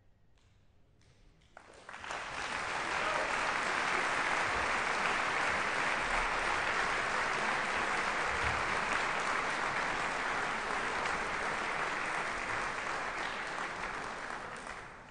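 Audience applause: a few scattered claps, then the whole audience breaks into steady clapping about two seconds in, which fades out near the end.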